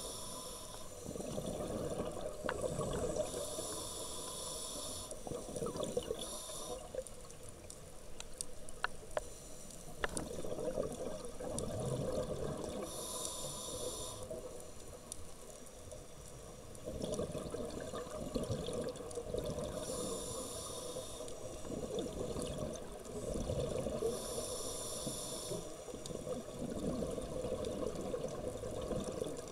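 Scuba regulator breathing underwater: several slow breaths, each a short hiss of inhalation, followed by long stretches of gurgling exhaled bubbles.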